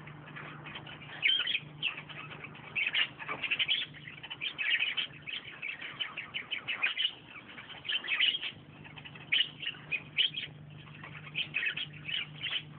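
Wild birds chirping, many short high calls overlapping irregularly, over a faint low steady hum.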